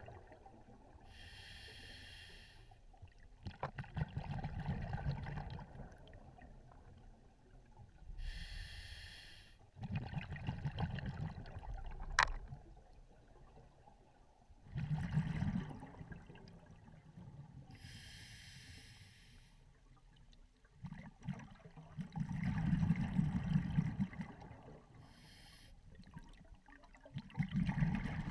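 Scuba diver breathing through a regulator underwater: a hissing inhale through the demand valve, then a low burst of exhaled bubbles, repeating slowly several times. A single sharp click about twelve seconds in.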